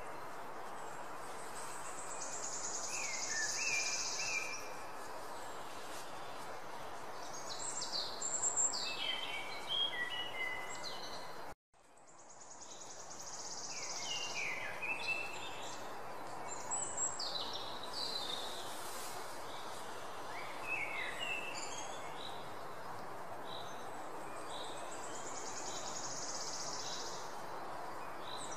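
Nature ambience of birds chirping, many short high calls and a few longer high buzzing calls over a steady background hiss. Just under halfway through, the track cuts out for a moment and fades back in.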